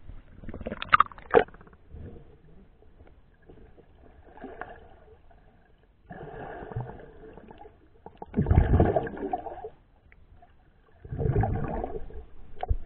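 Seawater splashing and sloshing around a camera as it is dipped below the surface and moved through shallow water, in several separate bursts with muffled underwater gurgling between them.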